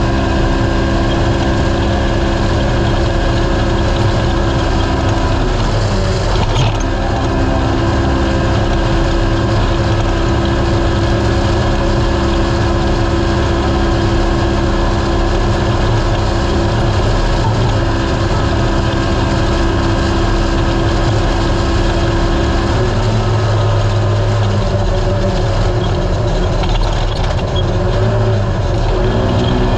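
Polaris RZR race UTV's engine running hard at speed over rough desert, under a steady rushing noise. The engine note dips briefly about six seconds in, drops around twenty-three seconds and climbs again near the end as the throttle and speed change.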